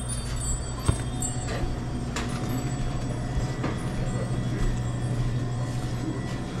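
Steady low electrical hum inside a convenience store, the kind given off by its lights and coolers, with a few faint clicks and knocks and one sharper click about a second in.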